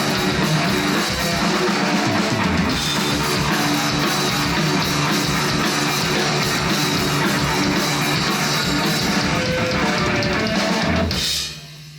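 Live stoner rock band playing loud distorted guitars over a full drum kit, with the song stopping about eleven seconds in, after which a steady low hum remains.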